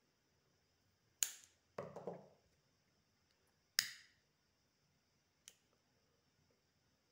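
A pair of scissors snips through a plastic cord about a second in, followed by a short clatter as the scissors are set down. A lighter then clicks alight at about four seconds to melt the cut cord end, and a fainter click comes near the end.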